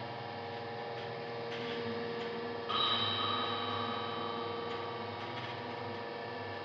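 A steady droning hum made of several held tones, with a brighter, higher tone that cuts in suddenly almost three seconds in and fades over about a second.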